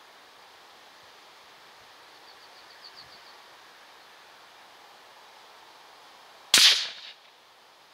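A single .223 Remington rifle shot, fired with a hand-loaded 55-grain round: one sharp, loud crack about six and a half seconds in that dies away within about half a second.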